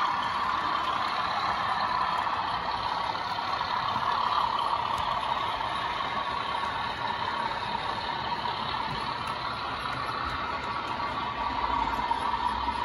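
DCC sound of model diesel locomotives: a recorded diesel engine running steadily, played through the models' small onboard speakers, so it sounds thin and mid-pitched.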